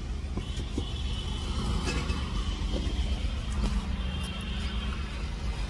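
Car engine running at idle, heard from inside the cabin as a steady low rumble, with a few light clicks.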